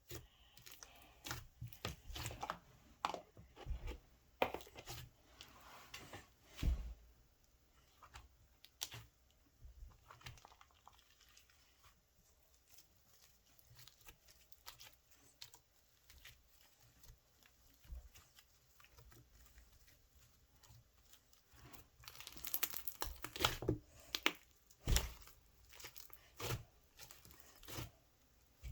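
Slime being pressed, stretched and torn by hand, giving off irregular crackling and crunching clicks, densest near the end.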